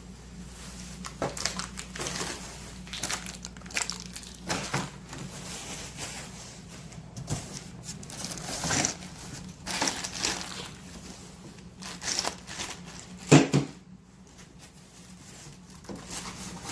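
Packaging being handled and unwrapped: irregular crinkling and rustling, with one louder thump a little past three-quarters of the way through.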